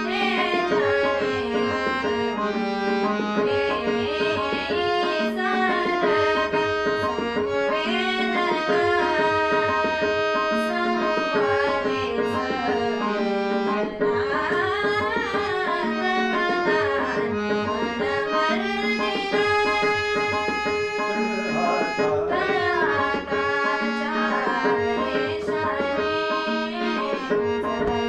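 Indian song with a female voice singing gliding, ornamented melody over a harmonium and tabla accompaniment with a steady drone.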